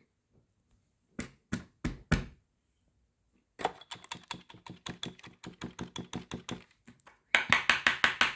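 Four sharp clicks, then a steady run of rapid clicking at about five a second starting about three and a half seconds in, turning faster and louder near the end.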